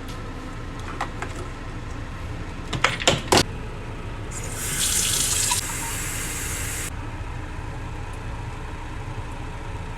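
Water running from a tap for about two and a half seconds, starting and stopping abruptly in the middle. A few sharp clacks of something being handled come just before it, over a steady low hum.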